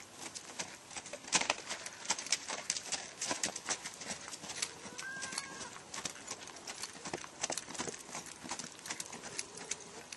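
Hoofbeats of a sorrel American Quarter Horse gelding moving under saddle on packed snow and frozen ground: a quick, uneven run of sharp hoof strikes.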